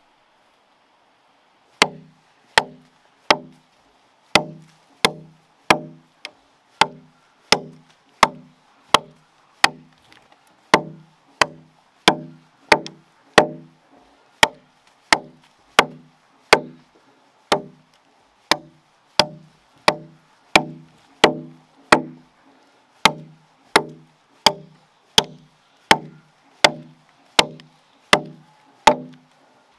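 Steady chopping into wood, starting about two seconds in: a sharp knock with a short low ring about every 0.7 seconds.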